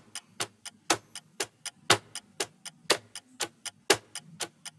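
Clock-style ticking sound effect of a quiz countdown timer. It gives a louder tick each second with lighter ticks between, about four ticks a second.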